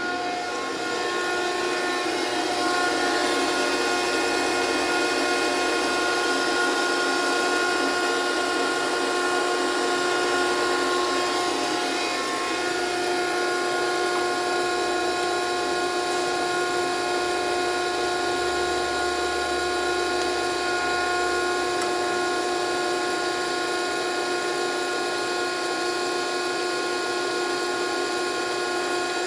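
Landis universal cylindrical grinder running with no load, a steady multi-tone machine whine from its motors and drives that holds unchanged throughout.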